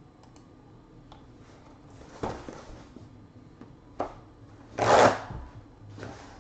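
Cardboard trading-card box being opened by hand: rustling and scraping of the cardboard, with the loudest rasp about five seconds in as the end flap comes open.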